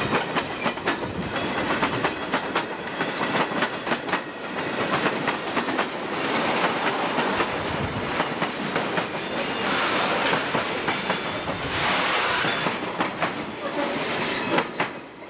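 Freight train cars rolling past close by: a steady clatter of wheels with rapid clicks, harsher for a few seconds past the middle. The last car clears near the end and the sound drops away.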